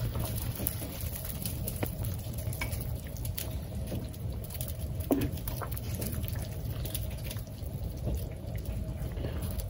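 A pot of chicken soup bubbling at the boil, with scattered light clicks and scrapes of a slotted spoon against the pot as it is stirred.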